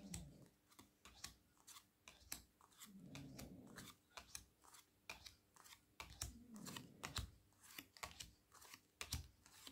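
Faint, irregular soft clicks and slides of small tarot cards being laid one by one onto a pile.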